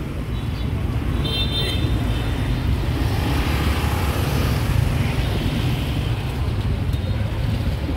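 Street traffic running steadily, a dense low rumble of passing road vehicles, with one brief horn beep about a second and a half in.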